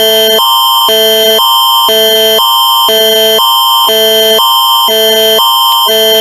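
Canadian Alerting Attention Signal (the Alert Ready emergency tone): a loud electronic alarm of two chords, one higher and one lower, alternating about twice a second over a constant high tone. It is the attention signal that precedes a Canadian emergency broadcast message.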